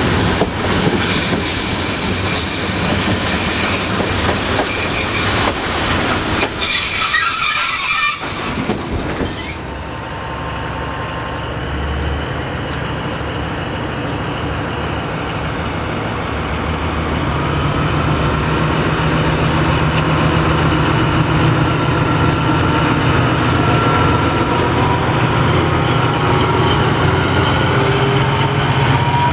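Train wheels squealing with a high, steady screech over rattling running noise for about the first eight seconds. The sound then changes to a diesel-hydraulic locomotive (LDH class 82) approaching with a steady engine hum that grows louder as it draws close.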